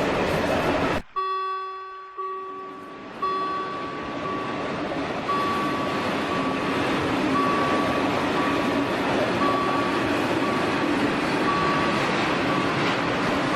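Train running noise from a sound-effect track, cut off sharply about a second in. A pitched tone follows, then a high beep that repeats about once a second while the running noise builds back up.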